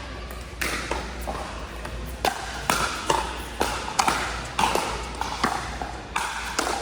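Pickleball paddles striking a hard plastic ball: a rapid, irregular series of sharp pops, about two a second.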